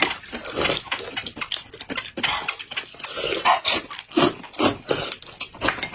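Noodles being slurped from a bowl of soup: a quick, irregular series of short wet sucking slurps, several a second, with mouth and chewing noises between them.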